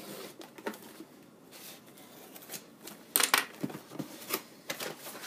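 A cardboard parcel being handled and opened by hand: irregular rustling, scraping and clicking noises, with a loud burst of tearing a little after three seconds in.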